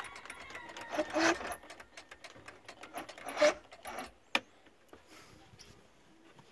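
Rapid, irregular mechanical clicking and rattling, typical of the V4 Johnson outboard's electric starter being tried on a weak battery without the engine catching. A sharp single click comes about four seconds in, then it goes quiet.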